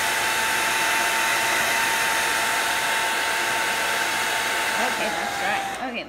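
An old hair dryer blowing steadily with a whine, drying wet watercolor paint. About five seconds in the whine sags in pitch and the blowing dies away as it is switched off.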